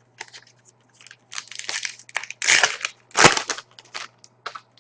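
Rustling and crinkling of a trading-card pack wrapper being torn open, with the cards handled: a run of short crackles, loudest in two bursts past the middle.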